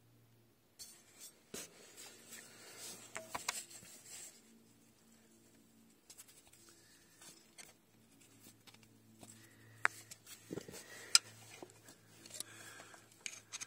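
Close-up handling noise: rubbing and scraping with scattered sharp clicks, starting about a second in, over a faint steady low hum. A few louder sharp clicks come near the end.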